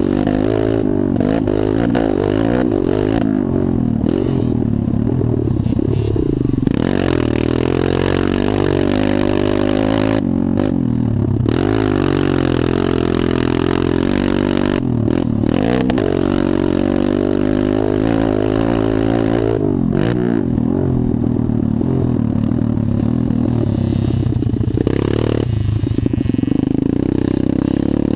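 Motocross dirt bike engine, heard close up from an onboard camera, revving hard as it laps a dirt track. The pitch climbs and drops over and over as the rider works the throttle and shifts gears.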